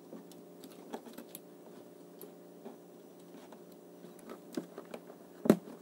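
Light clicks and rattles of wires and small plastic connectors being handled and tucked into place, with one sharper click about five and a half seconds in, over a faint steady hum.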